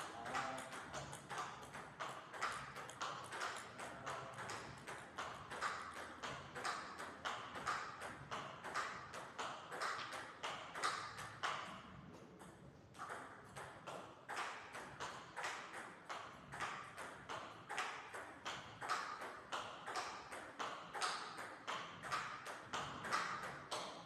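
A table tennis ball clicking back and forth between paddles and the table in a steady practice rally, about three clicks a second. The rally stops briefly about halfway through, then starts again.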